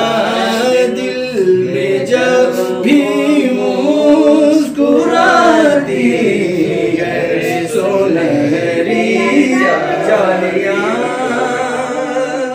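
Men's voices singing an Urdu naat together, unaccompanied: a continuous melodic devotional chant.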